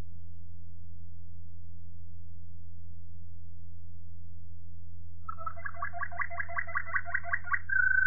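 Waterslager Malinois canary singing. After about five seconds of a steady low hum, a song phrase starts with a fast run of repeated notes and ends in a long held note near the end.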